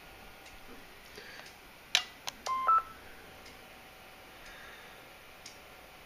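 Yaesu FT-857D transceiver being switched on: a sharp click about two seconds in, a lighter tick, then a short two-note electronic beep stepping up in pitch.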